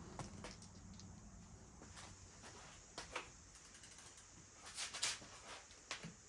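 A few faint, short clicks and taps of bicycle valve caps being handled and twisted on or off, around three seconds in and twice more near the end.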